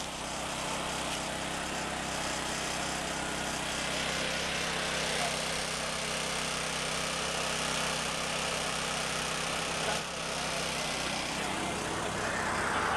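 Small portable generator engine running steadily: an even hum under a constant noise.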